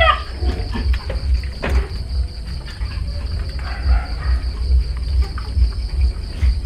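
A dachshund puppy's whining cry falls away just at the start. After it come only a steady low rumble, a thin steady high-pitched drone and a few faint soft clicks.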